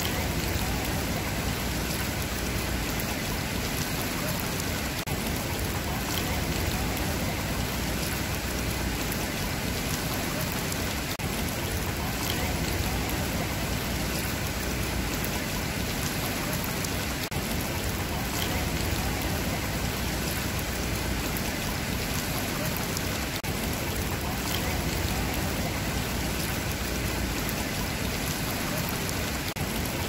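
Swimming pool water splashing and trickling steadily.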